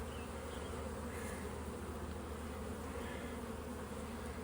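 Honey bees buzzing steadily in a swarm-like drone around an open hive during a frame inspection.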